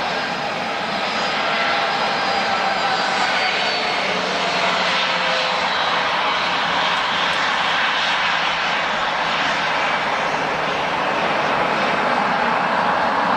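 Jet airliner's engines running, a loud, steady rush of noise with faint tones sliding slightly lower.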